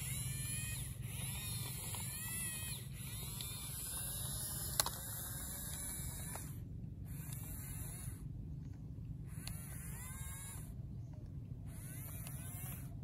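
Small electric motors of radio-controlled toy construction machines buzzing steadily, with repeated rising and falling whines and a single sharp click about five seconds in.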